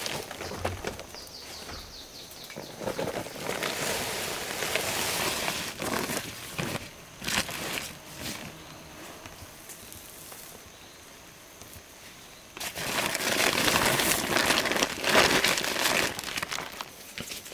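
Woven feed sack rustling and crinkling as it is handled, with hands stirring and gathering dry ground grain meal on it; the rustling comes in two louder stretches, a few seconds in and again near the end.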